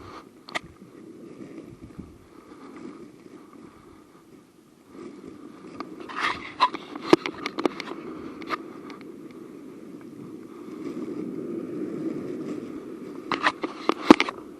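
Litter being handled and picked up: scattered sharp clicks and scrapes, bunched about six to eight seconds in and again near the end, over a low steady rush.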